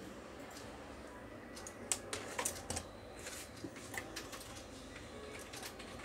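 Scattered light clicks and taps of hands and a small metal tool handling the plastic and metal parts inside an opened inkjet printer, with a quick run of sharper clicks about two seconds in.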